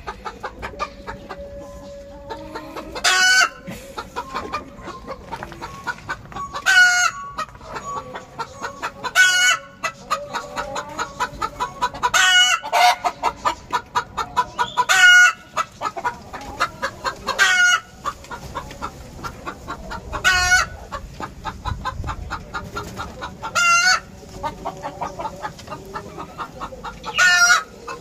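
A flock of chickens clucking continuously, with a louder, short call breaking out about every three seconds.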